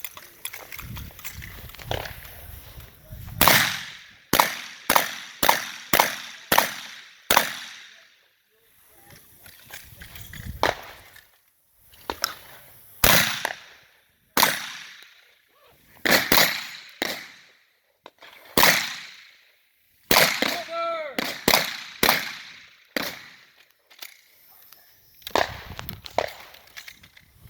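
Shotgun firing a competition stage: a fast string of about seven shots a few seconds in, then more shots spaced out with pauses between them, each ringing out after the blast.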